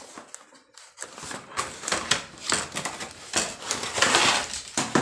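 Unboxing packaging being handled: irregular rustling and crinkling with small clicks and knocks, thickest about four seconds in.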